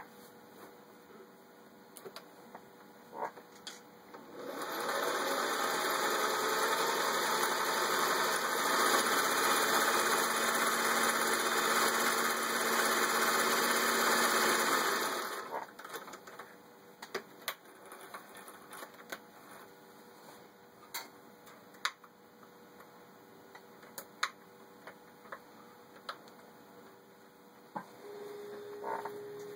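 Vintage Singer 500A 'Rocketeer' sewing machine stitching a built-in pattern, running steadily for about eleven seconds and then stopping. Afterward there are scattered clicks and light knocks, and a low steady hum starts near the end.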